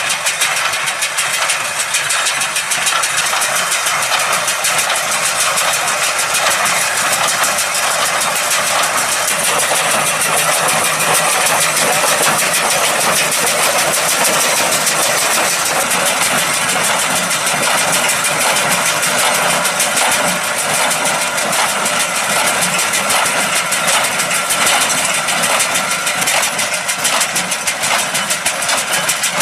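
New Holland TS100 tractor's diesel engine running steadily while powering a New Holland 575 small square baler at work.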